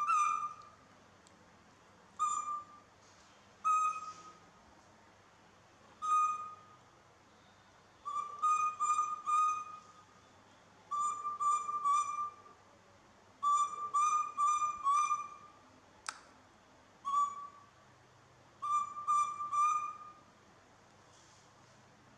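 Baby macaque calling over and over: short, clear, high coo calls, some single and some in quick runs of two to four. These are the calls it makes when left alone while its keeper goes for a snack. A single sharp click about two-thirds of the way through.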